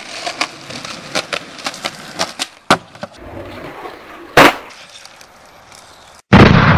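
Skateboard rolling, its wheels giving a run of sharp clicks, with a sharp crack near three seconds in and a loud clack of the board landing a flip trick at about four and a half seconds. Near the end a loud, different sound cuts in abruptly.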